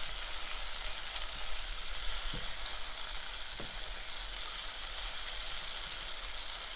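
Crushed garlic sizzling in a hot pot over medium-high heat, a steady frying hiss. Two soft knocks a little over two and three and a half seconds in.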